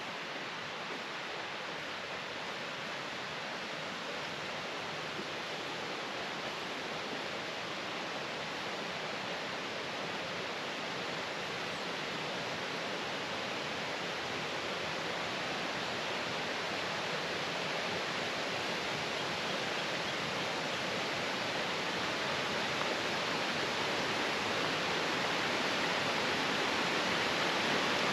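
Steady rush of flowing water, slowly growing louder.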